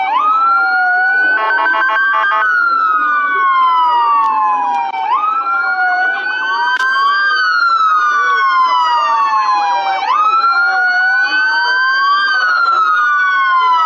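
Two emergency-vehicle sirens wailing at once, each rising quickly and then falling slowly, about once every five seconds. A brief rapidly pulsing tone sounds over them about two seconds in.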